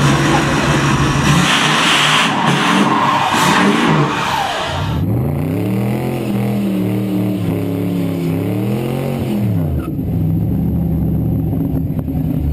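Loud car engine sounds in edited cuts: first an engine running with a broad rush of noise, then after a sudden cut a V8-style engine revving up, holding, and dropping back, then settling to a steady low running note.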